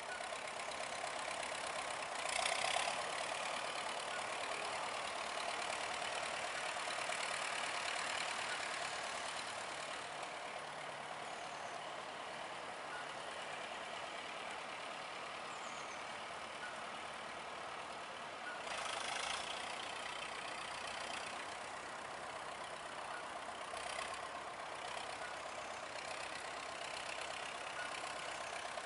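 Nuffield 460 tractor engine running steadily, swelling briefly louder three times.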